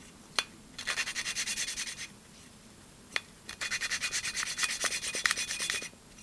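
Hand lapping of a GY6 150cc engine valve: the valve, turned rapidly back and forth on its seat with a glued-on pen, grinds through silicon carbide lapping compound in two spells of gritty rasping, each a second or two long. A single sharp click comes shortly before each spell.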